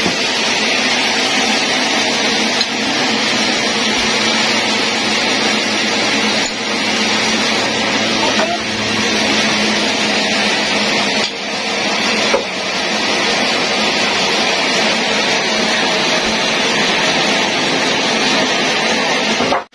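Band sawmill running: a loud, steady machine noise that dips briefly in level a few times.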